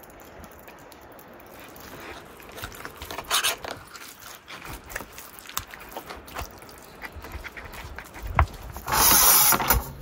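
Hands working a wet marinade into raw rabbit carcasses on a wooden board, with scattered squelches, pats and small clicks. A loud rush of noise lasts about a second near the end.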